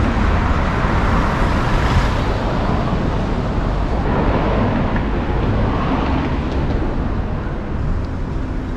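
Road traffic: cars driving past on a city street, a steady rush of tyre and engine noise that swells and fades as they pass.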